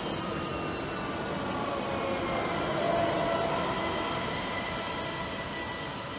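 ÖBB class 4746 Cityjet electric multiple unit (Siemens Desiro ML) running away along the track: an electric whine of several steady tones over rumbling wheel noise, fading through the second half.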